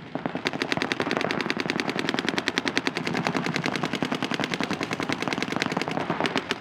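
Paintball markers firing in rapid, continuous streams, a fast rattle of shots, more than ten a second, that starts about half a second in.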